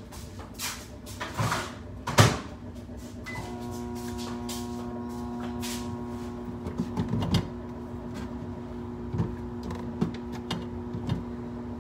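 Knocks and clatter of kitchen handling, the loudest about two seconds in. About three seconds in there is a short beep, and a steady appliance hum starts and runs on under more scattered knocks.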